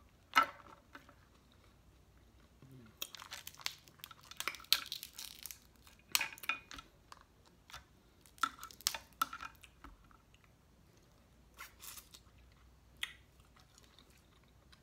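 Snow crab legs being cracked and snapped apart by hand, with a sharp shell crack about half a second in and then irregular crackling and crunching of shell as the meat is pulled out, alongside close-up chewing.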